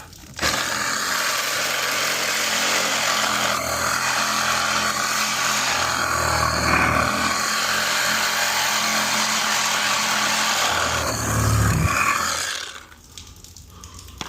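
Reciprocating saw (Sawzall) cutting through old galvanized steel pipe, running steadily with a motor hum under the harsh cutting noise, then stopping near the end.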